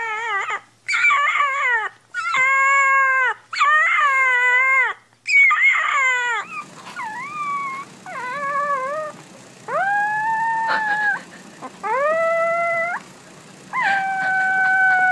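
Puppies howling one after another. First come about five wavering howls, each roughly a second long. About six seconds in, a second puppy takes over with a series of higher, shorter howls that rise at the start and then hold steady.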